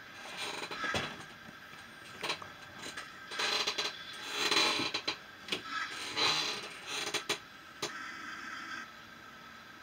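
Sound-fitted Hornby OO-gauge model steam locomotive moving off slowly: irregular bursts of steam chuff and hiss from its sound system, mixed with the small whirr and clicks of its motor and gears, easing to a quieter steady running sound near the end.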